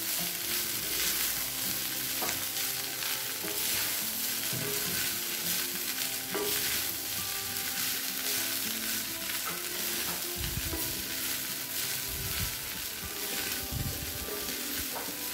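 A wooden spatula stirs and tosses soaked flattened rice (poha) with vegetables in a hot metal kadai. It scrapes repeatedly against the pan over a steady sizzle from the oil.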